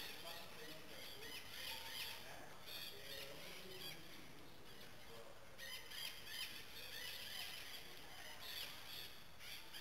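Faint, repeated high chirps and squeaks from small birds, coming in irregular clusters with a short lull a little past halfway.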